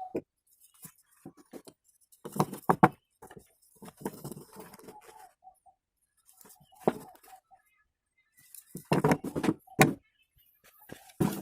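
Scattered knocks, clicks and light rattles of hard objects being handled and set down, in short clusters with quiet gaps between them.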